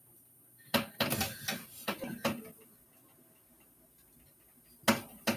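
A quick run of sharp clicks and knocks about a second in, then two more near the end.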